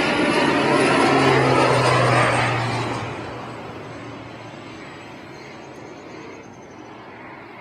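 Crop-duster airplane passing low overhead, its engine and propeller loud for the first two or three seconds, then dropping slightly in pitch and fading to a steady lower drone as it flies away.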